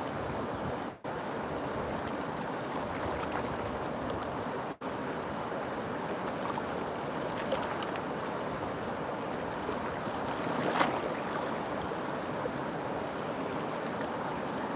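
River water rushing steadily. There is a brief louder splash about eleven seconds in, and the sound cuts out for an instant twice early on.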